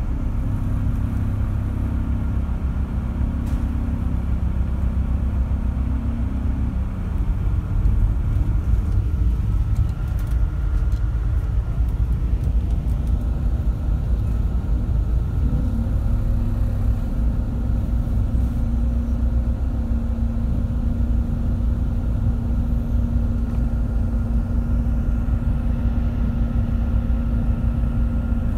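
High-speed passenger boat's engines running with a steady low rumble and hum, heard inside the cabin. About halfway through, the engine note shifts up slightly and settles into a steady, even hum.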